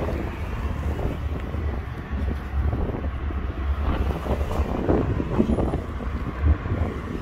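Wind buffeting the microphone, a steady low rumble, with irregular crackles and rustling as the handheld camera moves.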